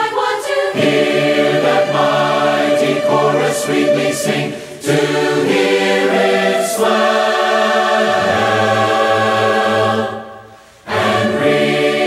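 Choir singing a gospel hymn in held chords, with a short break in the singing just after ten seconds in.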